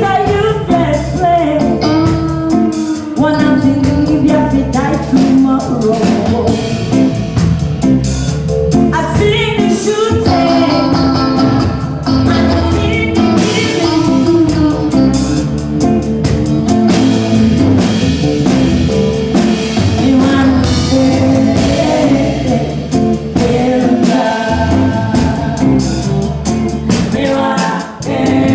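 Live ragga band playing, with a singer's voice and drums over the band.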